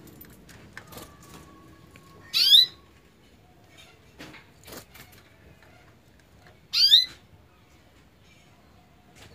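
Domestic canary singing two short, loud bursts of rapid trilled notes, each about half a second long and some four seconds apart, with faint clicks in between.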